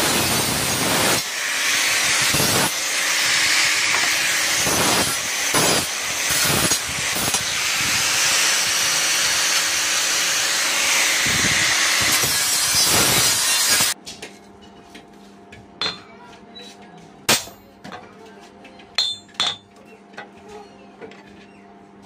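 Angle grinder with an abrasive disc grinding the edge of a forged iron plate, a steady loud grinding that dips now and then as the pressure changes, then stops abruptly about two-thirds of the way through. Afterwards a few light metallic clinks are heard as the iron plate is handled.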